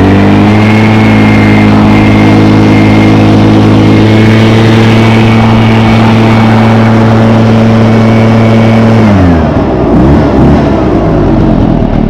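Echo PB500T backpack leaf blower's 50.8cc two-stroke engine held at full throttle, a steady high engine note with rushing air. About nine seconds in the throttle is released and the revs fall back toward idle.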